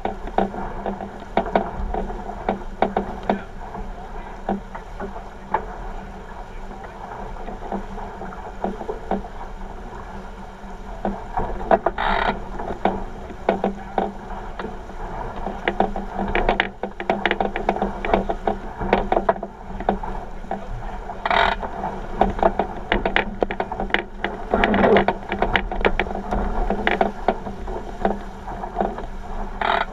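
A 49er skiff's hull rushing through water at speed, with water splashing and slapping against it and many small clicks and knocks. A few louder thumps stand out, as the hull hits waves.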